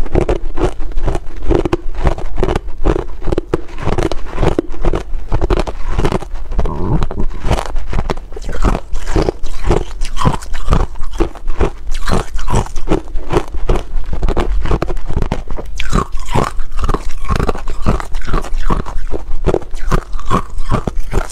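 Hard clear ice being chewed, close to the microphone: a continuous run of sharp crunches, about three a second.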